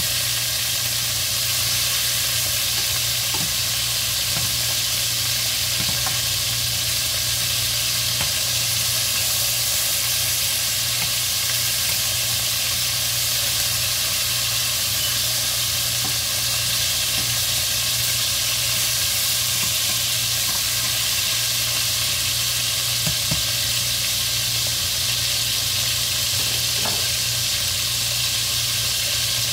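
Chicken pieces sizzling steadily in hot oil in a stainless steel pot, with a slotted metal spatula now and then scraping and turning them.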